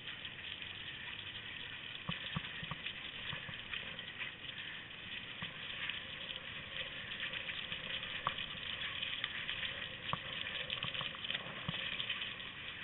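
Skis hissing steadily over snow as a team of Samoyeds pulls, with irregular light pattering and clicks from the dogs' running paws.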